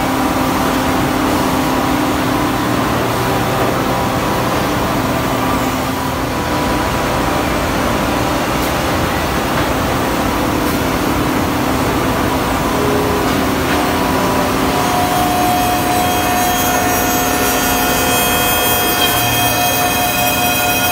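Woodmaster 4-axis CNC copy shaper running, its cutter spindles and sanding heads machining a curved wooden workpiece: a steady machine and wood-cutting noise. A steady high whine comes in about fifteen seconds in.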